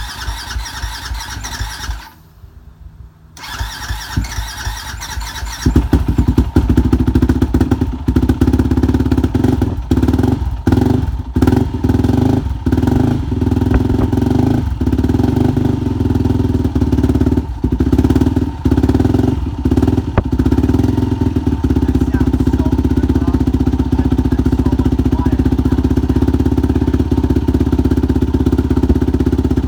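2005 Yamaha WR450F's single-cylinder four-stroke engine, just fully rebuilt, being turned over twice with a short pause between. It catches about six seconds in on its first start after the rebuild and keeps running loudly and steadily.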